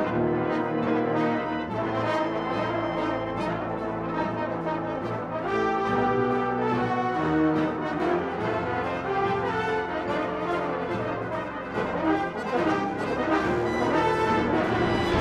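A British-style brass band of cornets, horns, euphoniums, trombones and tubas plays full sustained chords over a steady percussion beat.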